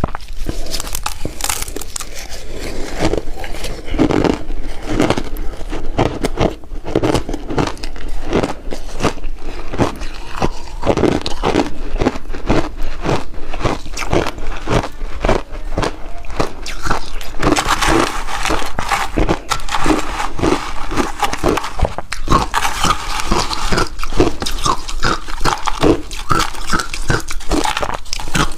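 Close-miked biting and chewing of a refrozen shaved-ice chunk: a dense run of sharp, rapid crunches, with a grittier grinding stretch in the later part as the ice is chewed down.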